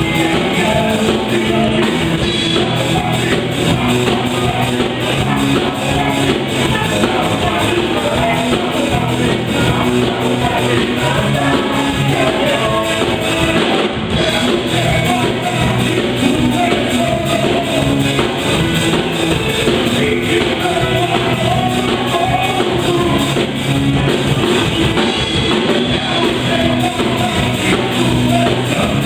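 A band playing an upbeat song with drum kit, guitar and singing.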